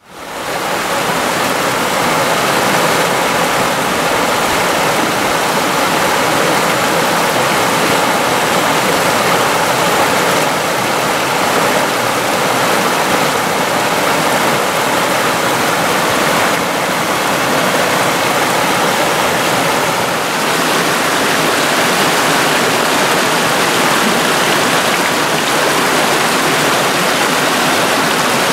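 Small waterfall and rapids on a rocky mountain stream: a steady rush of water pouring and splashing over rocks into a pool. It fades in over the first second.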